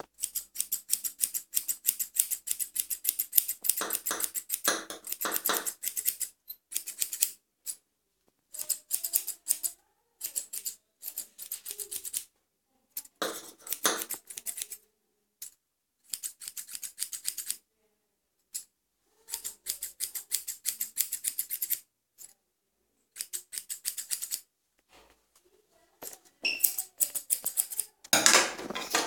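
Grooming scissors snipping rapidly through a schnauzer's leg hair, in quick runs of cuts broken by short pauses.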